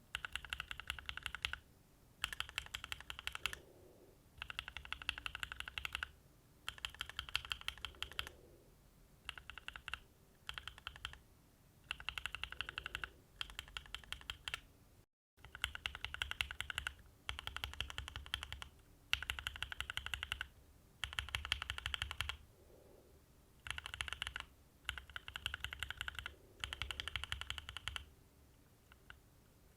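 Typing on a Mode Envoy mechanical keyboard with linear switches and Mode Tomorrow keycaps, without foam: runs of rapid key clacks a second or two long, with short pauses between them.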